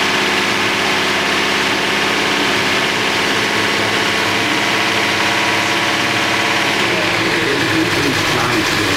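Datsun L20B inline-four engine with twin 40mm Mikuni carburettors idling steadily, running for the first time after being swapped into the truck. A voice comes in under it near the end.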